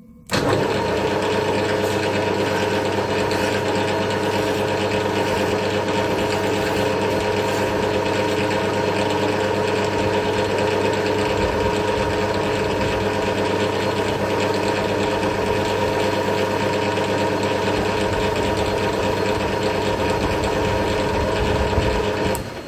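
Metal lathe running in high range: a steady gear whine with several constant tones, switched on just after the start and winding down near the end.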